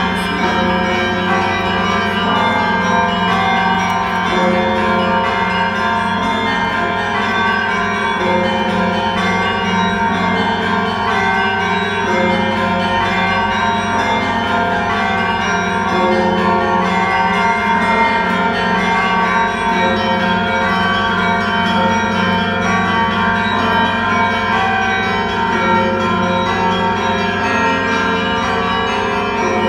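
Church bells of St Michael's Golden-Domed cathedral ringing a continuous Orthodox peal (perezvin), many bells of different pitches sounding together over a steady low hum.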